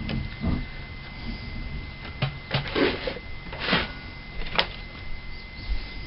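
Scattered light clicks, taps and rustles from hands handling small carburetor parts and a screwdriver on a cloth-covered workbench, with a faint steady high tone underneath.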